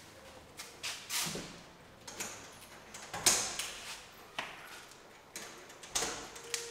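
A series of irregular clicks and knocks, about ten in all, the loudest a little over three seconds in.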